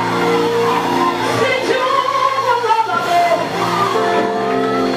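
A woman singing a gospel song into a microphone with a gliding, wavering vocal line, over held accompaniment chords that change twice.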